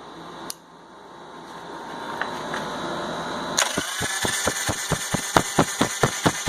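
1985 Harley-Davidson Sportster's electric starter, on battery-charger boost, turning the engine over with its spark plugs out. About three and a half seconds in, the starter kicks in with a whine, and the engine spins with a fast, even clatter, about six beats a second, without firing.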